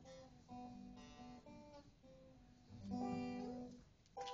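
Acoustic guitar playing the closing phrase of a song: a few picked chords, then a last strummed chord about three seconds in that rings and fades. Applause breaks in at the very end.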